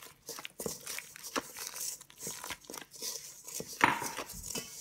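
Chopsticks stirring cornmeal freshly scalded with boiling water in a stainless steel bowl: irregular scraping and crumbly rustling as the wet clumps are worked. A little under four seconds in, one sharper clack rings briefly.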